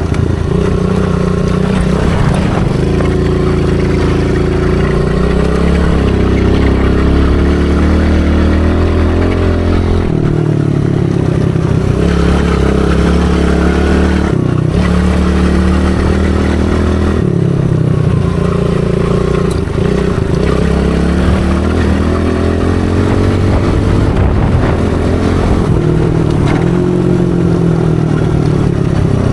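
Small dirt bike engine under a rider, revving up and easing off over and over. The pitch climbs, then drops sharply every few seconds as the throttle is opened and shut.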